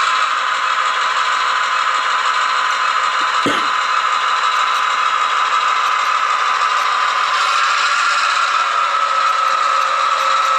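Sound decoder in an HO-scale GP38-2 model locomotive playing a steady diesel engine sound through its small speaker, thin and without bass, mixed with the rattle of the model running along the track. There is a brief thump about a third of the way in.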